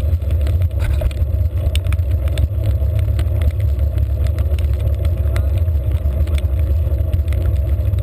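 Steady wind buffeting and road rumble picked up by a handlebar-mounted GoPro on a bicycle riding a wet road, with many small knocks and rattles scattered throughout.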